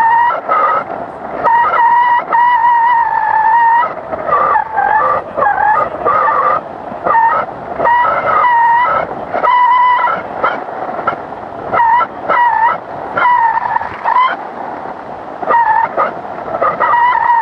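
Paragliding variometer beeping: a high electronic tone broken into notes of uneven length that shift and wobble in pitch, over steady wind rush.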